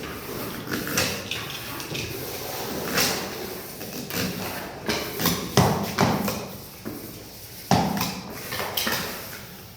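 Irregular knocks and thuds, several close together about halfway through and a sharp one at about three-quarters.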